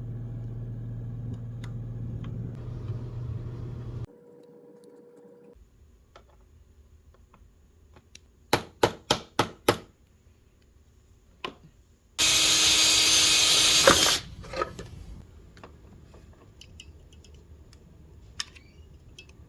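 Small power tool work: a steady motor hum for about four seconds, then five short, loud bursts a little before the middle, and about two seconds of loud, high-pitched grinding in the second half, with light ticks and handling clicks between.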